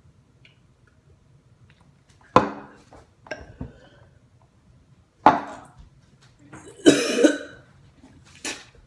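A teenage boy coughing and gagging over a bowl in four sudden bursts after a mouthful of a disgusting drink mixture; the third burst is the longest.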